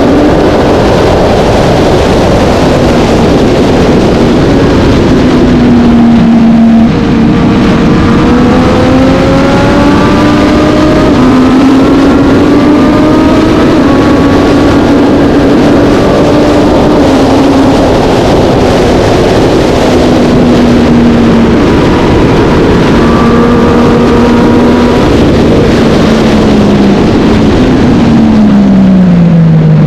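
Racing motorcycle engine running hard under race load, its pitch climbing and dropping repeatedly as it accelerates and shifts, then falling steeply near the end as it slows. A steady rushing noise runs beneath it.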